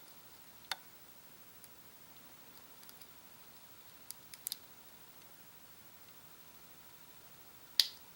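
Lock pick and tension wrench working inside a small Master Lock padlock, with a few scattered light clicks as pins set. The loudest click comes near the end.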